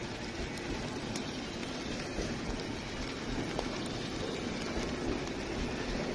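Heavy hurricane rain pouring steadily, with running floodwater and the low rumble of an approaching freight train underneath.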